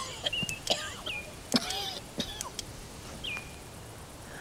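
A man's strained gasps and short groans as he struggles for breath, with a few short high bird chirps in between.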